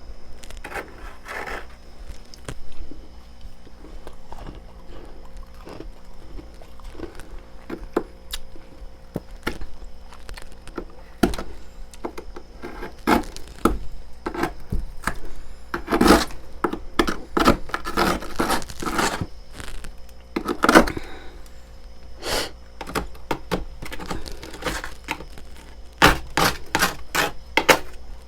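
Freezer frost being chewed close to the microphone: crisp crunches in bursts, with the densest runs of crunching in the second half.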